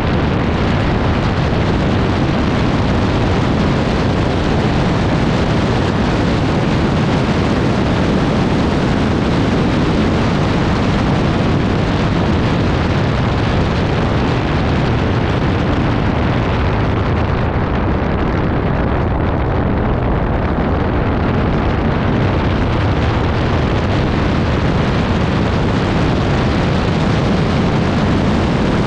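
ATV being ridden: its engine running under a loud, steady rumbling noise that stays even throughout, with heavy wind buffeting on the microphone.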